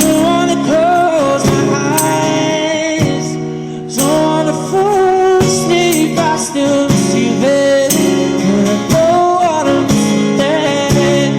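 A man singing long, wavering held notes high in his range over a strummed acoustic guitar, with a strum stroke about once a second.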